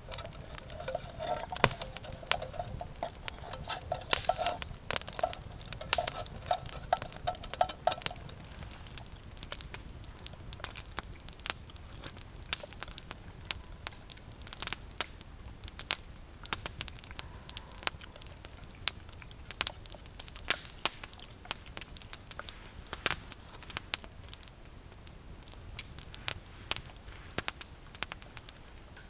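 Wood campfire crackling and popping throughout. For about the first eight seconds, water pours from a bottle into a metal pot over the fire, with a steady ringing pitch.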